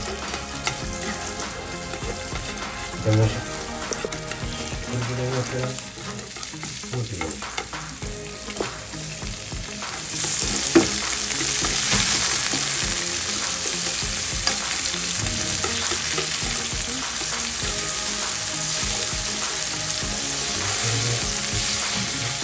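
Food frying in olive oil in a pan, sizzling and being stirred, with occasional knocks. About ten seconds in, after a sharp knock, the sizzle gets louder and brighter and stays that way.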